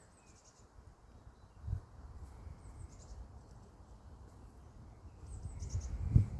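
Wind buffeting the microphone as a low rumble, with a thump about two seconds in and a louder gusty stretch near the end. Over it, short high-pitched chirps come in little clusters about every two and a half seconds.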